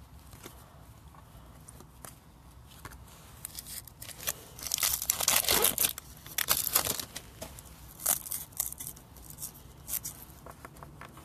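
Trading-card packaging being torn open and crinkled, quiet at first, then a loud stretch of tearing and crinkling from about the middle on.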